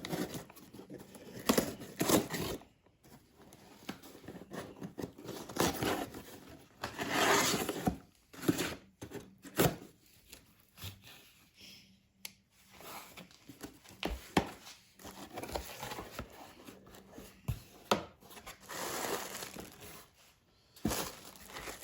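Shipping packaging being torn open and crinkled by hand, in irregular bursts of tearing and rustling separated by short pauses.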